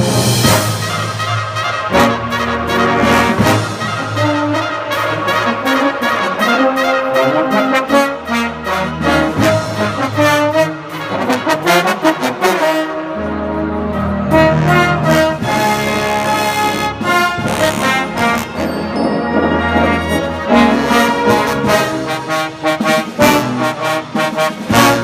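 A full brass band of cornets, euphoniums, tubas and trombones playing loudly, heard from among the trombones so that they sound closest. The music moves in many short, crisp notes.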